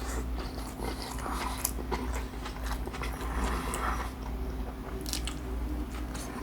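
A person chewing a crispy fried fish taco close to the microphone, with irregular crunching and wet mouth clicks.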